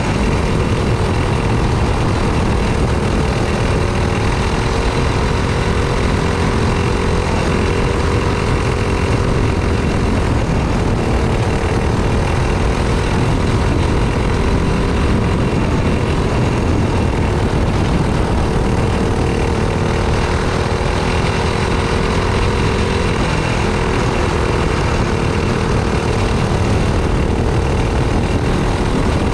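Racing go-kart's small engine running hard at speed, heard onboard, its pitch wavering a little up and down through the lap, over a steady rumble of wind and track noise.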